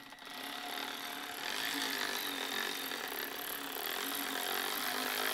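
Cordless electric ratchet running steadily on a rocker cover nut, its motor whining without a break; the nut is not coming free, as the cover stud spins with it.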